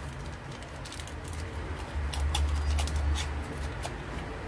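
Thin plastic packaging crinkling and clicking as hands handle a bagged router bit, with scattered small clicks throughout and a low rumble for about a second near the middle.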